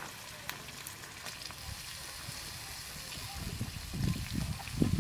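Sliced onions sizzling in hot oil in an iron kadai over a wood fire, with a few light crackles. Low muffled sounds, like a voice, build up near the end.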